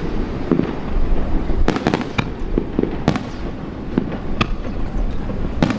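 Aerial fireworks bursting in a display: a string of sharp bangs with a cluster of quick reports about two seconds in, over a steady low rumble of echoing shells.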